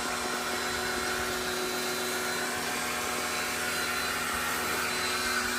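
AGARO electric high-pressure car washer running steadily, its motor and pump humming while the wand sprays soapy water from the built-in shampoo tank onto the car body with a constant hiss.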